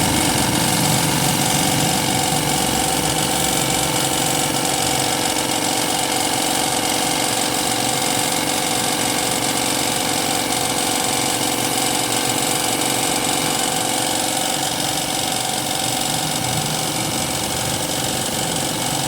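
Air compressor running steadily during spray painting of a car door: a continuous motor hum with a constant high hiss.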